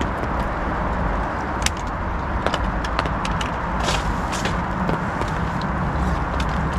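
Steady low outdoor rushing noise with scattered light clicks and taps, like tackle being handled.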